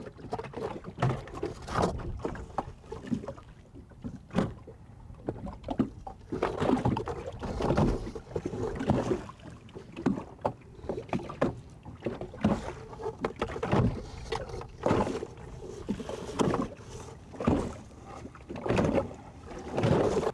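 Small waves slapping and knocking irregularly against the hull of a boat at anchor, a second or two apart, in a light breeze.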